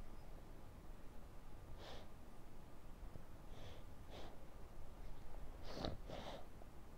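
A person's short breaths close to the microphone, about five of them, the last two close together near the end, over faint background hiss.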